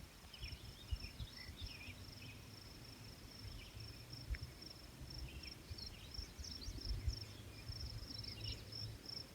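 Crickets chirping in a steady, rapidly pulsing high trill, with scattered short bird chirps over it and a faint low rumble on the microphone.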